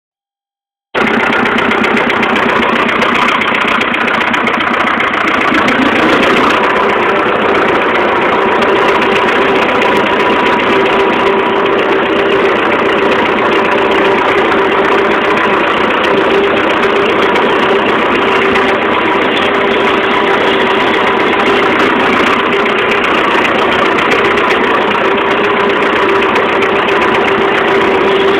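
Fordson Major tractor engine running steadily, starting abruptly about a second in, with two steady tones held through it.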